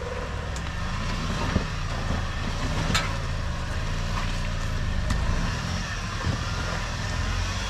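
Toyota Hilux 4WD's engine running steadily at low revs as it crawls over rough ground, with a few sharp knocks, the loudest about three seconds in.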